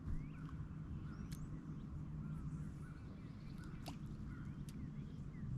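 Background birds calling with many short, quick chirps, with a few sharp clicks, over a steady low hum.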